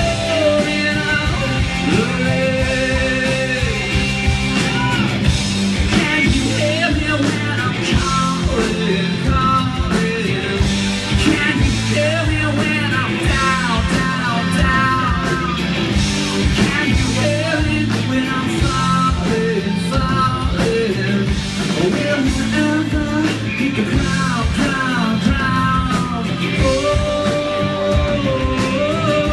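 Live rock band playing a song: electric guitars, bass guitar and drum kit, with a male lead singer.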